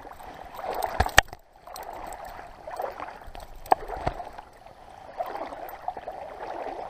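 Close handling noise as hands unhook a brook trout from a spinner: continuous rustling with a few sharp clicks, the loudest a little over a second in and another just before four seconds.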